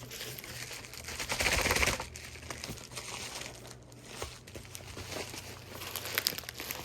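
Packaging crinkling and rustling as it is handled and pried at with a knife, loudest about a second and a half in, then lighter crackles and clicks.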